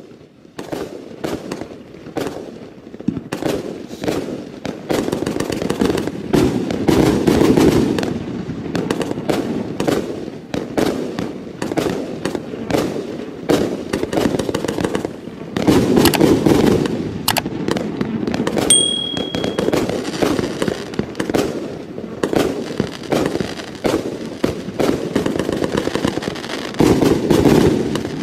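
88-shot Brocade War firework cake firing: a fast, dense string of launches and bursts, with very loud titanium salute bangs mixed among the brocade shells.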